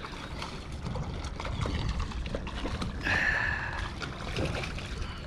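Water splashing as a hooked spiny dogfish thrashes at the surface, with a louder burst of splashing about three seconds in.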